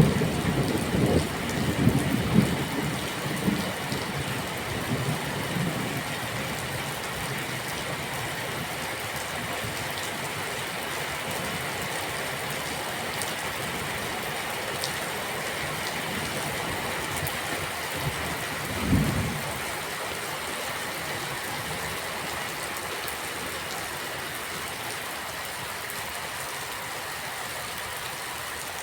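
Steady rain, with thunder rumbling low for the first few seconds and fading away, then one short low rumble about two-thirds of the way through.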